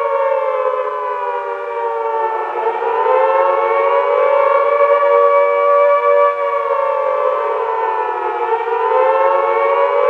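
Missile-alert air-raid siren wailing. Its pitch slides down over the first couple of seconds, climbs back and holds, then falls and climbs again near the end.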